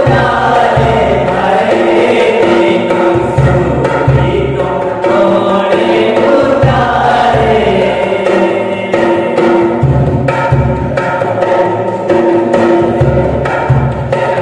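Men's voices singing a church song together, accompanied by a pair of tall wooden conga-style hand drums struck with the hands in a steady, repeating rhythm.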